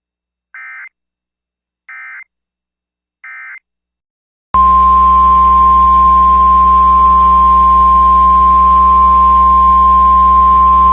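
Three short EAS/SAME digital data bursts, the end-of-message code closing a weather alert. About four and a half seconds in, a loud, steady NOAA Weather Radio 1050 Hz warning alarm tone starts over a low hum.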